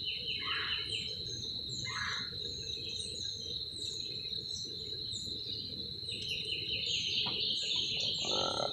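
Insects trilling steadily, with birds chirping over them and two louder bird calls early on. A low steady rumble lies underneath.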